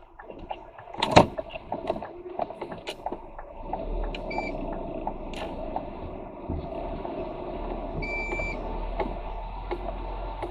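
Lorry cab interior on the move: a sharp clunk about a second in, then steady engine and road rumble building from about four seconds in, with scattered rattles and clicks. Two short electronic beeps sound about four seconds apart.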